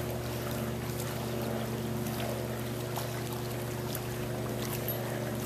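Steady, unchanging low hum of an above-ground pool's filter pump motor running.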